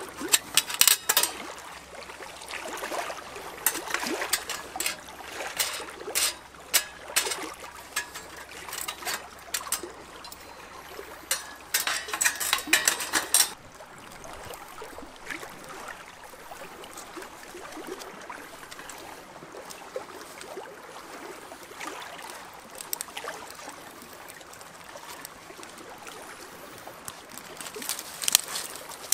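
Clicks, clinks and knocks of a folding perforated steel wood stove being set up and loaded, densest around 11 to 13 seconds. After that comes a steady soft rush with sparse small crackles as a small wood fire catches inside the stove.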